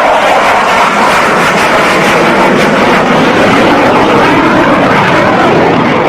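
Loud, steady jet aircraft engine noise, a fighter-jet sound effect laid over the video.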